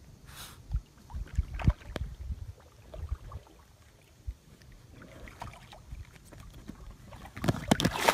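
Inflatable kayak on a lake, with wind rumbling on the microphone and a few low knocks on the hull. Near the end comes a loud splash as a dog jumps from the bow into the water.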